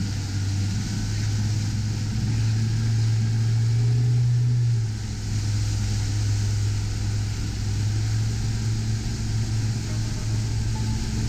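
Motorboat engine running steadily at cruising speed, a low drone that swells about three seconds in and eases back about five seconds in, over a steady hiss of wind and water rushing past the hull.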